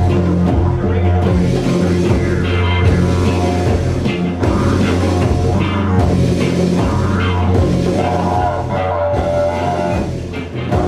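Live band music: a didgeridoo drone under hand drums (congas and a frame drum) and electric guitar, in a dense, steady groove.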